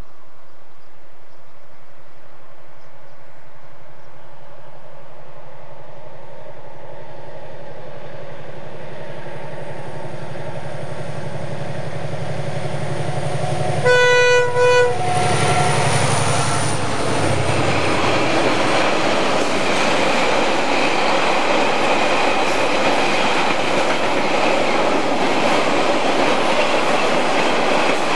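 Diesel locomotive hauling a loaded timber train: its engine drone builds as it approaches, it sounds two short horn blasts about halfway through, and then it passes, followed by the steady rumble and clatter of the log wagons rolling by.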